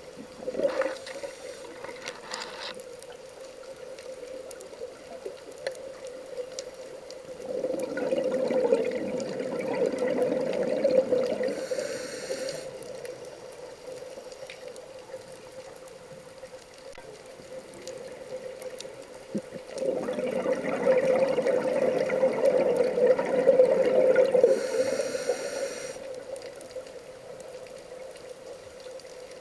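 A scuba diver's regulator recorded underwater: two long rushes of exhaled bubbles, several seconds each, about twelve seconds apart, with shorter hisses of inhaling between them. A steady low hum runs under it all.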